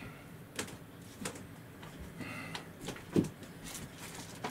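Irregular sharp taps and knocks, a handful over a few seconds, the loudest about three seconds in.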